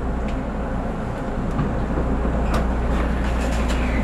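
Electric trains at a station platform: a steady low hum and rumble as a neighbouring train rolls slowly past alongside, with a few sharp clicks.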